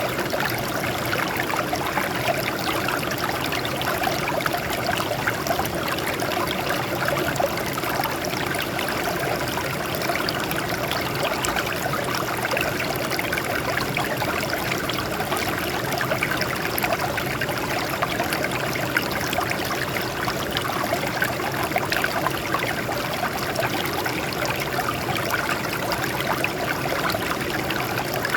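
Water flowing and splashing over rocks in a steady, unbroken rush.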